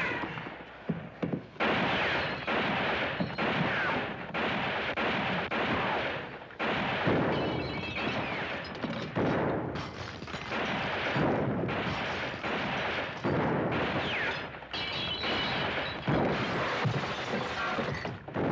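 A heavy exchange of gunfire from revolvers and rifles: dense volleys of shots in stretches of a second or two, broken by short lulls.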